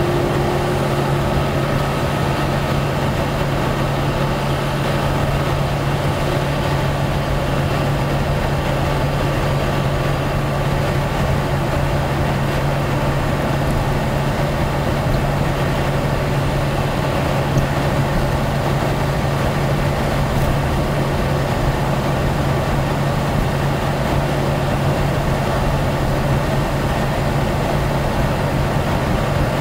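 Motorhome cruising at highway speed, heard from inside the cab: a steady low engine drone under even road and tyre noise.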